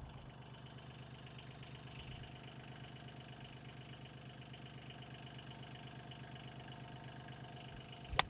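A John Deere Gator utility vehicle's engine idling steadily with an even pulse. A single sharp click near the end.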